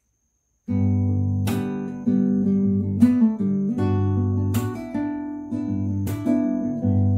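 Acoustic guitar playing chords, starting just under a second in. A sharp stroke about every second and a half sets off each chord, which rings on until the next.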